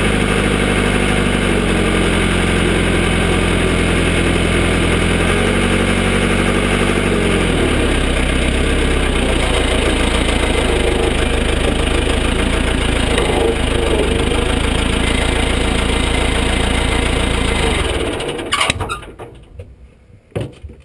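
Cat 416 backhoe's diesel engine running, its speed stepping up and down a few times in the first several seconds, then holding steady. The engine shuts off about three seconds before the end, leaving a couple of faint knocks.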